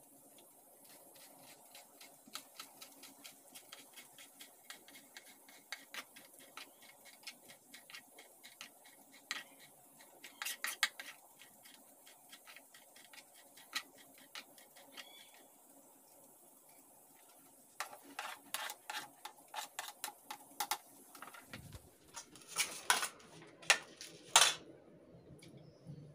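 Kitchen knife chopping fresh green herbs on a plastic cutting board: quick, light taps a few times a second, with a pause partway through. Near the end come a few louder knocks and clatters.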